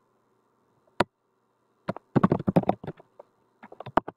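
Typing on a computer keyboard: a single click about a second in, then a quick run of keystrokes about two seconds in and another short run near the end, as an email and password are entered.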